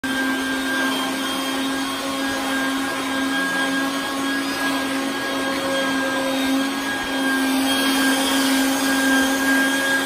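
Vacuum cleaner running steadily, a constant motor hum and whine over a rush of air, its hose nozzle worked through alpaca fleece to pull out grit before shearing.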